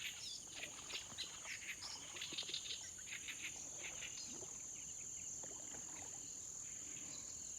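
Insects droning steadily at a high pitch, with a run of short chirps over the first three seconds that then thins out.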